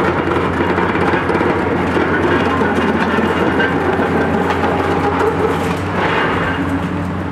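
Diesel engines of two Caterpillar high-reach demolition excavators running steadily under hydraulic load, a continuous low engine hum over a general rumble of machinery.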